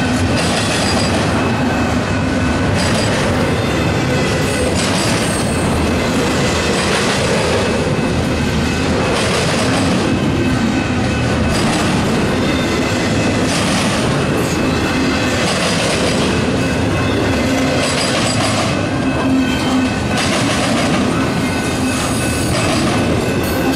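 Loaded double-stack container well cars rolling past close by: a loud, steady rumble of steel wheels on the rails, with irregular clacking as wheels cross rail joints and thin high squealing tones from the wheels.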